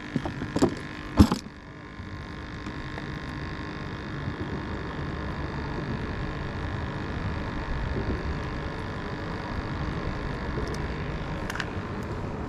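Steady rumble of road traffic passing over the bridge. A couple of sharp knocks about a second in are the loudest sounds.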